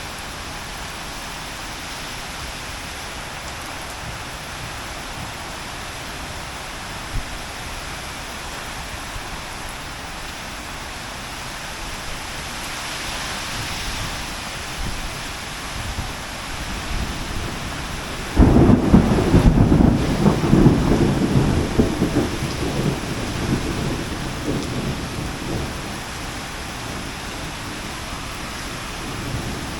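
Heavy rain falling steadily. About two-thirds of the way through, a sudden loud low rumble breaks in over the rain and dies away over several seconds.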